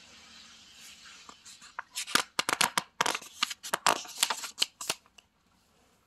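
A hand turning a page of a picture book: a soft rustle of fingers sliding over the paper, then a run of sharp paper crackles and flaps as the page turns over. The crackles end about five seconds in.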